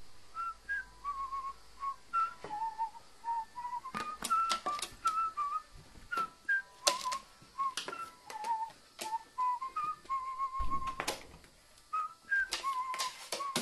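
A string of short whistled notes, some wavering in pitch, one after another, with sharp clicks and taps scattered among them.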